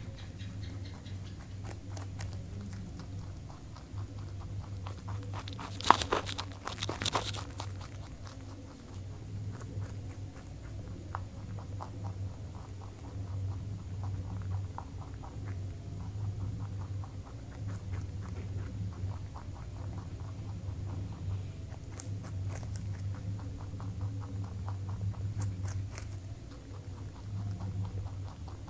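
A rabbit gnawing and chewing a raw carrot: quick crunchy clicks throughout, with louder crunching about six seconds in, over a steady low hum.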